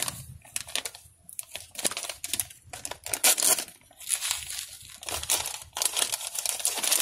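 A shiny pink plastic packet crinkling and tearing as it is handled and pulled open by hand, in irregular bursts with short pauses between them.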